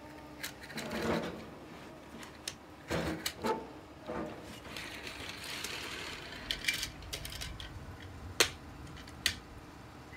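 Bruder Cat mini excavator toy being worked by hand through a pretend dig: a scatter of plastic clicks and knocks, with a stretch of scraping in the middle and the sharpest knock about eight seconds in.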